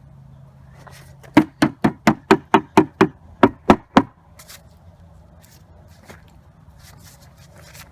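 About eleven hard knocks in quick succession, roughly four a second, then they stop. The ice-encased Ruger American 9mm pistol is being struck to break the ice out of it.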